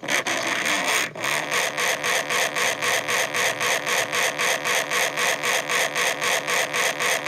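A loud, harsh noise pulsing evenly at about five beats a second, with a brief break about a second in.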